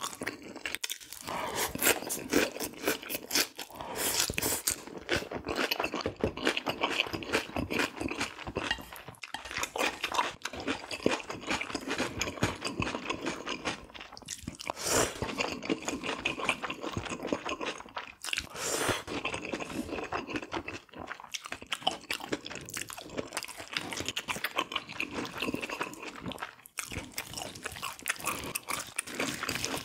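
A person chewing and biting food close to the microphone: a dense, continuous run of small wet clicks and smacks of mouth sounds.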